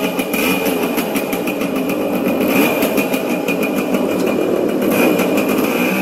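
KTM RC 390's single-cylinder engine running steadily with an even, slightly wavering note.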